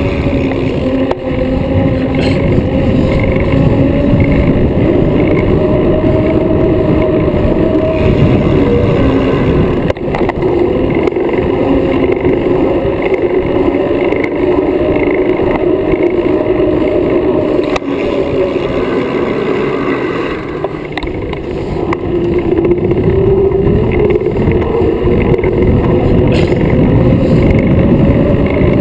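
Wind and road noise on an action camera's microphone riding on a road bike at race speed: a loud, steady rush with a hum that slowly rises and falls as the speed changes.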